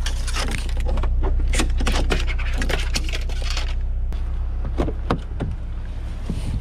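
Clinking, rattling and scraping of fishing gear being handled, a quick run of sharp knocks and jingles in the first four seconds that thins out afterwards, over a steady low hum.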